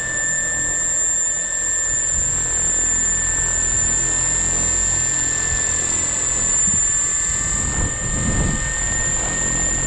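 Brushless electric motor of a giant-scale RC biplane spinning its propeller on the ground at a steady speed. A constant high whine sits over the whoosh of the prop.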